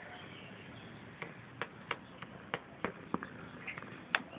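A string of sharp, irregular clicks, roughly three a second, starting about a second in over a faint steady background.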